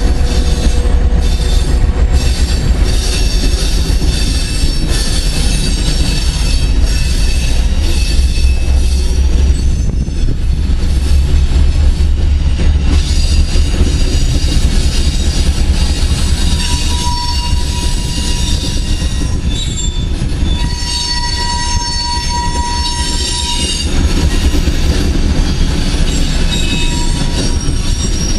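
Coal train of open-top cars rolling past: a steady low rumble of the cars on the rails, with thin high squeals from the steel wheels coming and going.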